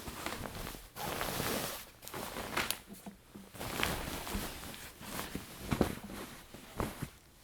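Bedcovers and fabric rustling in uneven bursts, with soft footsteps and a few light knocks, as someone moves about getting out of bed.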